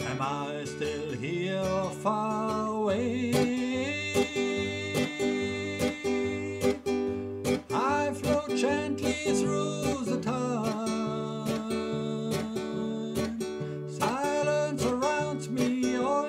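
Acoustic guitar playing an instrumental passage: strummed chords with a melody line over them.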